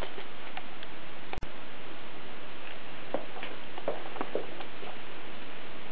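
Steady hiss with a few faint, scattered ticks and clicks, most of them past the middle. The sound cuts out for an instant about one and a half seconds in.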